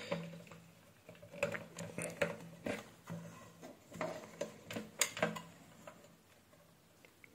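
Faint, irregular clicks and taps of a small circuit board and its flat ribbon cable being handled against a plastic weighing-scale housing, dying away about six seconds in.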